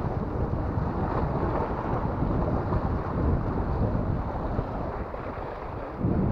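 Wind buffeting the microphone, with waves washing against the rocks. A brief louder bump comes near the end.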